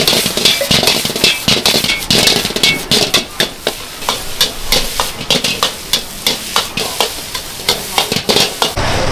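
Metal spatula scraping and striking a wok as fried rice is stir-fried, over the sizzle of frying. The strokes come quickly, settling to about two a second, and near the end the sound cuts to a steady hiss.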